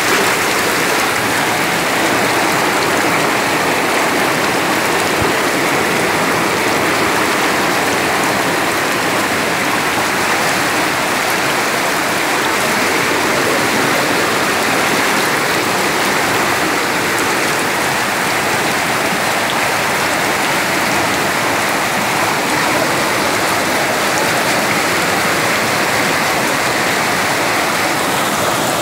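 Muddy floodwater rushing and churning, a loud steady noise of running water.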